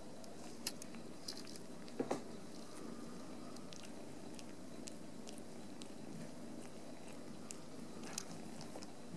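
British lilac shorthair kittens licking and washing each other up close: small, irregular wet tongue clicks and smacks, with a sharper pair of clicks about two seconds in.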